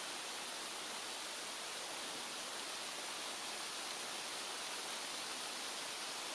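Steady, even hiss with no separate sounds in it.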